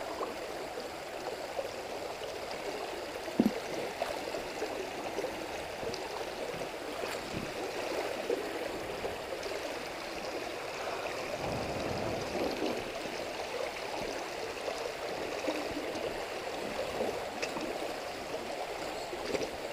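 Shallow, rocky mountain creek running over stones, a steady rushing burble of moving water. A single sharp knock about three seconds in.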